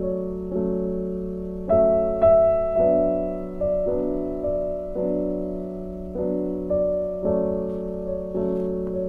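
Gentle background piano music: soft chords struck every half second to a second, each fading away.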